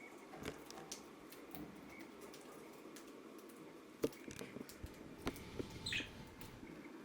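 Scattered small clicks and taps, the loudest about four seconds in, and one short, high budgerigar chirp about six seconds in.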